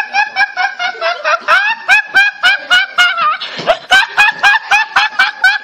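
A young man laughing uncontrollably: a fast string of short, high-pitched snickering gasps, about five a second.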